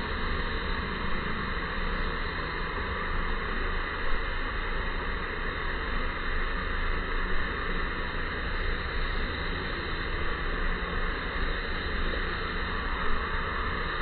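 Steady, even rushing noise with no distinct sounds in it, rising in a few soft bumps about 4, 7 and 13 seconds in.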